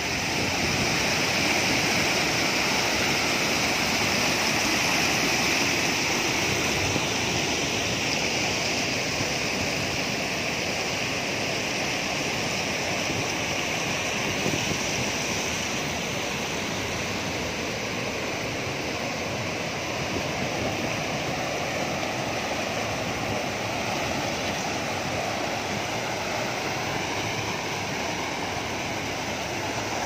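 Stream water rushing and splashing through narrow rock channels and over small cascades on flat stone ledges, a steady noise without pause.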